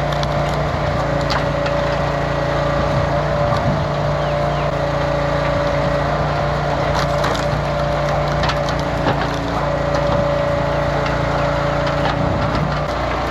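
Large industrial wood grinder running steadily with a constant hum, with the crackling and splintering of wood being chewed up by its rotating blades.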